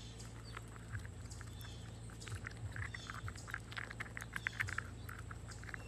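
Chipmunk gnawing on a nut held in its front paws: a faint, irregular run of small clicking, crunching bites.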